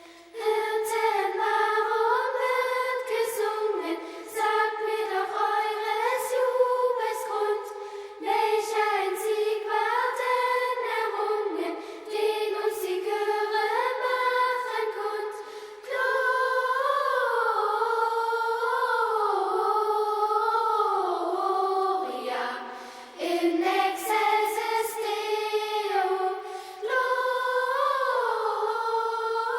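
A choir of high voices singing a melody in phrases, with short breaths between lines.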